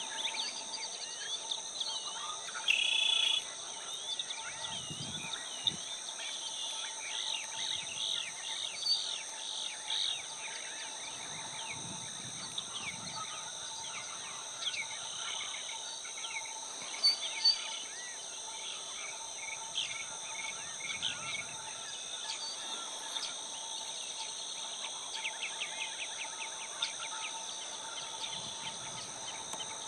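Small birds chirping and twittering over a steady high insect drone, with a few louder chirps about three seconds in and again past the middle.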